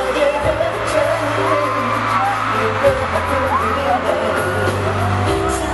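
Live pop ballad with singing played loud over a stadium sound system, long held bass notes changing every few seconds, with a large crowd screaming and cheering along.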